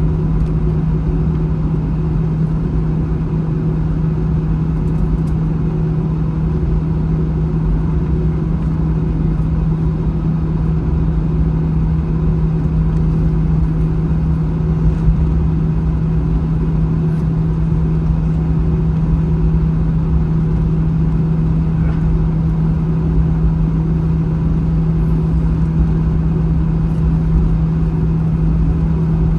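Airbus A321 cabin noise while taxiing after landing: a loud, steady low drone with a strong humming tone that holds the same pitch throughout.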